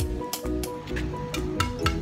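Background music with sustained pitched notes over a bass line and a steady percussive beat, the beat quickening near the end.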